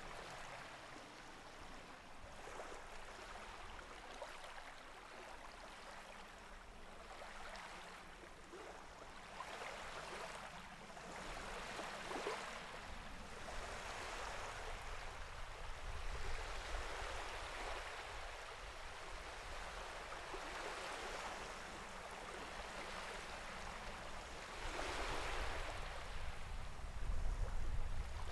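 Sea water washing and surging, a steady wash that swells every few seconds, with a low rumble rising near the end.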